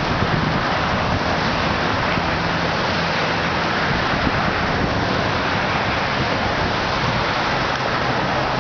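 Steady rushing noise of a windstorm with rain, even and unbroken throughout.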